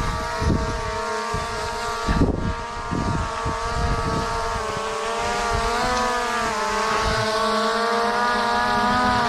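A mountain bike's rear freehub buzzing steadily as the bike coasts downhill, its pitch wavering slightly with wheel speed. Knocks and rumble from the rough trail run underneath.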